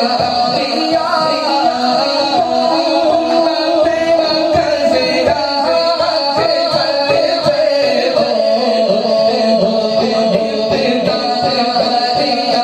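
A man singing an Urdu naat, a devotional poem in praise of the Prophet, in a melody that keeps rising and falling in ornamented turns.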